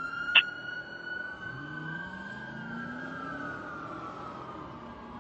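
Fire engine's siren sounding a steady wail on one high held tone, which slides lower in pitch over the last couple of seconds. A sharp click comes about half a second in, and a low engine sound climbs in pitch underneath in the middle.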